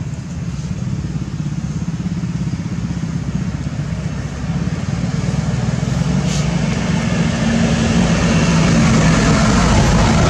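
Engine of a motor vehicle running, a steady low drone that grows louder toward the end.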